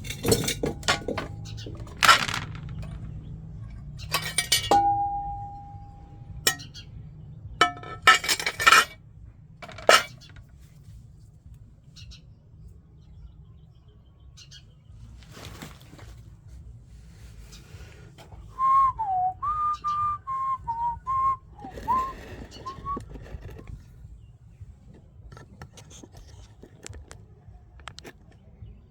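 Pieces of broken tempered glass from a washing machine door clinking as they are handled, with a string of sharp clinks in the first ten seconds. Later a person whistles a short wavering tune for a few seconds.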